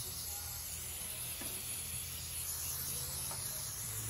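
Aerosol can of Fluid Film rust inhibitor spraying in one continuous hiss, with a steady low hum underneath.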